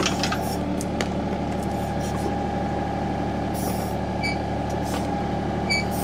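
John Deere compact tractor's diesel engine running steadily, driving the hydraulics of a John Deere 270B backhoe as it digs out a tree stump. A constant higher whine sits over the engine hum, with a few faint clicks.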